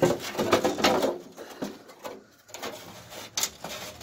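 Metal parts under a car rattling, scraping and clicking as a rusted piece is worked loose by hand, busiest in the first second, then scattered knocks.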